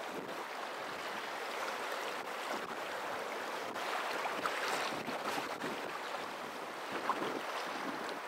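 Steady rush of moving water, with faint scattered splashes and ticks.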